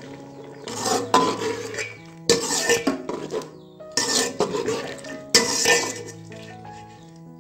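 Perforated steel skimmer stirring and scraping against a metal cooking pot in four bouts, mixing cream and yogurt into a thick beef curry.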